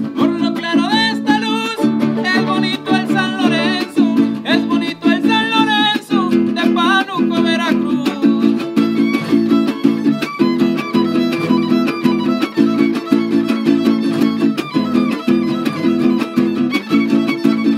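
Son huasteco played by a trío huasteco: a violin leads with a wavering melody over the steady strummed rhythm of the jarana huasteca and quinta huapanguera. The violin line stands out in the first half, then the strumming comes forward as an even, driving rhythm.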